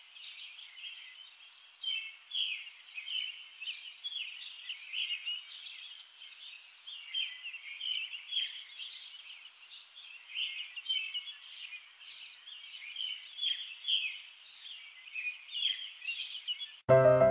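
Birds chirping and singing, a dense run of short high calls with no pause. Piano music cuts in about a second before the end.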